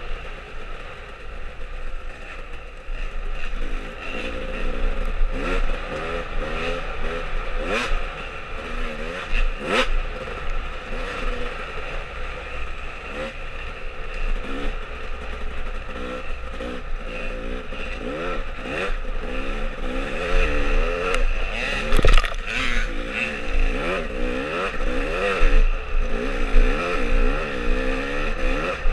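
Off-road dirt bike engine running hard, its pitch rising and falling as the throttle opens and closes, with wind rumbling on the microphone. A few sharp knocks and clatters come from the bike over the rough trail.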